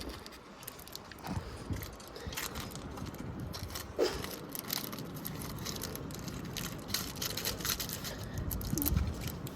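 Toy washing machine being broken up: a busy run of irregular plastic clicks, knocks, scrapes and crunches.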